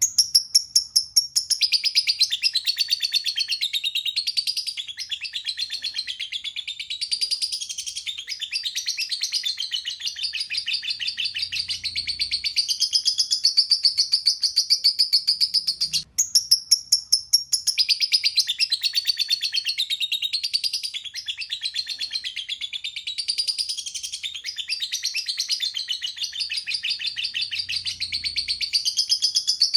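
Lovebird singing a long, unbroken, fast high-pitched chattering song. It breaks off for a moment about halfway through, then starts again.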